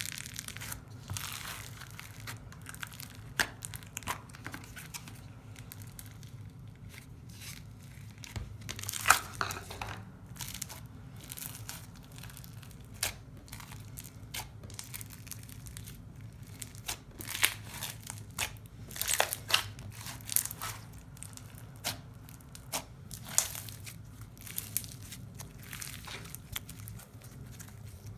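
Clear slime packed with microfoam beads being squeezed and pressed by hand, giving irregular crunchy crackles and pops. Clusters of louder snaps come about a third of the way in and again in the second half, over a faint steady low hum.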